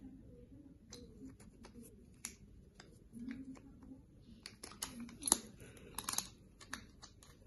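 Hard plastic parts of an AFMAT PS-B06 electric pencil sharpener clicking and knocking as its grey blade-holder cage is twisted and pulled out of the black housing. Scattered clicks at first, then a dense run of rattling clicks in the second half, with the loudest knock about five seconds in.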